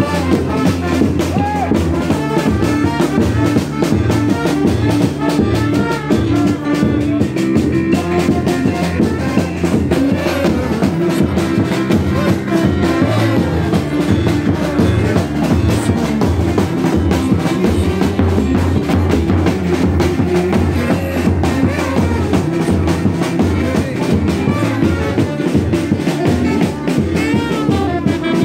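Live street brass band of trombones and trumpets playing carnival music over a steady, driving drum beat.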